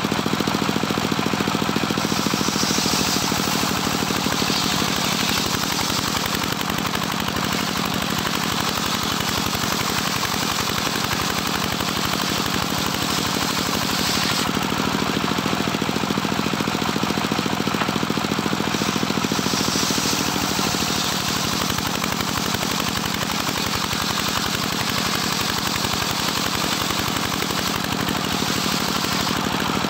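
Homemade engine-driven circular sawmill running steadily while its blade rips a teak plank lengthwise. The cutting adds a brighter, higher sound in two long stretches, from about two seconds in to about halfway, and again from about two-thirds of the way in until near the end.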